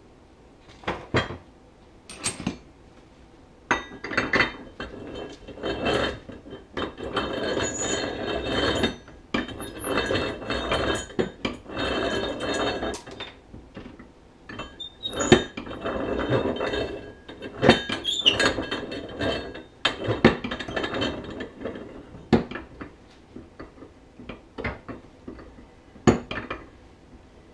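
Metal clinking and scraping of tools on an Arctic Cat snowmobile primary drive clutch while its spider, the thread Loctite softened by heat, is unscrewed and now turns easily. It comes as stretches of rattling, grinding noise a few seconds long, broken by sharp clinks.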